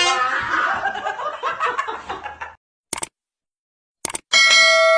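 People laughing for about two and a half seconds, fading out. After a pause and two short clicks, a single bell-like ding sounds near the end and keeps ringing.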